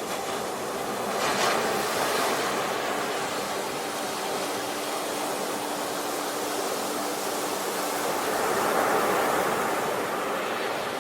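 Sea waves washing ashore in a steady rush of surf, swelling about a second and a half in and again near the end.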